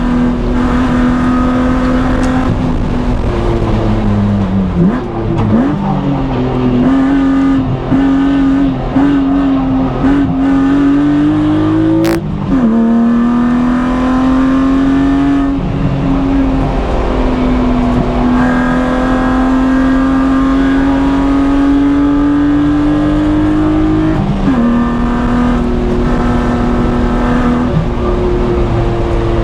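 BMW E36 M3's inline-six engine being driven hard on track, heard from inside the car. Its pitch climbs steadily under full throttle and drops sharply at each of several gear changes, with one long pull in the middle. A single sharp click comes about twelve seconds in.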